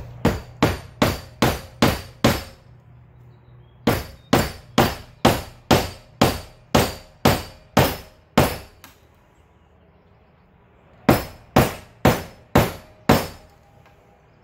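Hammer blows on metal, tapping a seized bearing's inner ring off a GT bottom bracket spindle, each blow with a short metallic ring. They come in three runs of about six, eleven and five blows, roughly two a second, with pauses between.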